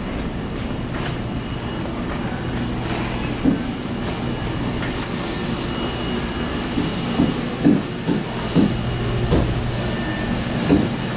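Wire shopping cart rolling over a store floor, its wheels and basket rattling steadily with a low hum beneath. There are several sharper knocks in the second half as it jolts along.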